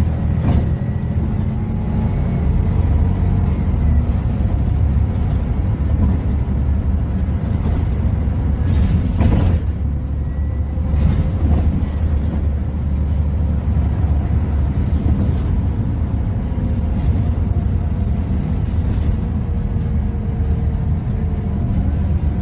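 Ride inside a LiAZ 5292.22-01 city bus under way: the steady low drone of its MAN E0836 compressed-natural-gas engine and driveline, with a faint whine that slowly rises and falls. A short knock about nine seconds in.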